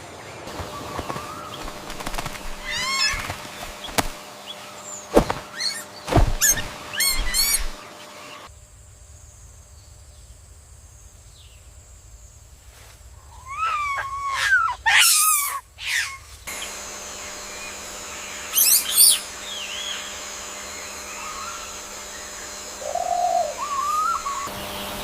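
Birds chirping and calling in short, scattered bursts of rising and falling notes, with a few sharp knocks among them in the first several seconds.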